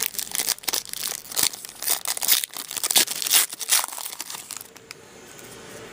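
Crinkling and tearing of a trading card pack's wrapper as it is opened and handled, dense crackling for about four and a half seconds before it stops.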